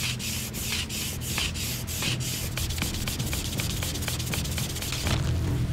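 Bamboo fire saw: a bamboo strip scraped rapidly back and forth across split bamboo to make a friction fire. The strokes come about three a second, quicken, then stop about five seconds in.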